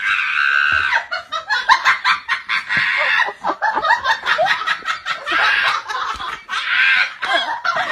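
A person laughing hard: quick high-pitched ha-ha pulses with a few longer squeals of laughter, at the start and again near the end.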